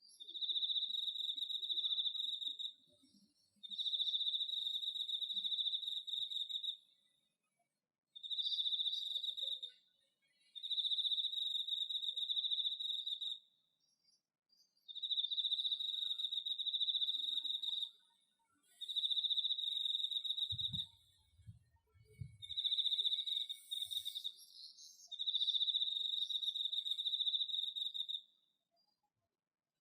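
A cricket singing: a high, steady trill in bouts of two to three seconds, about eight of them, each followed by a short pause.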